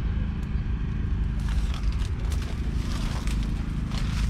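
Footsteps crunching on dry straw stubble, a run of irregular crackles from about a second and a half in, over a steady low engine hum.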